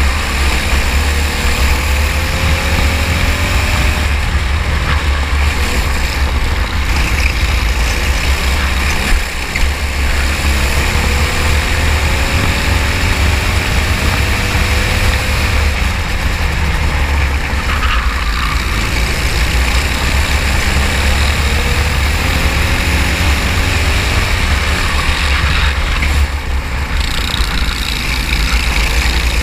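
Racing kart engine heard on board, its pitch rising three times as it accelerates, about ten seconds apart, over a heavy steady low rumble.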